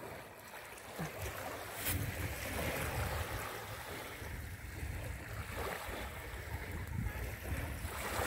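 Small waves lapping and washing onto a sandy shore, with wind buffeting the microphone.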